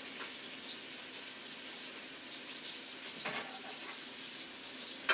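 Chicken pieces frying in oil in a pan, a steady sizzle. A short clatter about three seconds in and a sharp knock right at the end.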